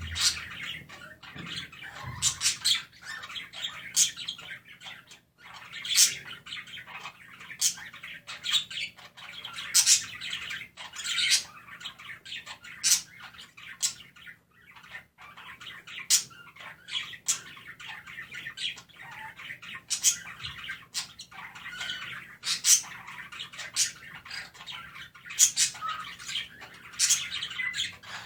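Budgies (budgerigars) chirping and warbling without a break. Sharp, high chirps come every second or two over a constant chattering song.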